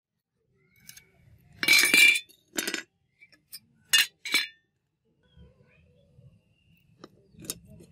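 Rusty steel butcher's cleaver blade and loose handle pieces clinking against a concrete floor as they are handled and set down: a loud clattering strike about two seconds in, then a few single metallic clinks.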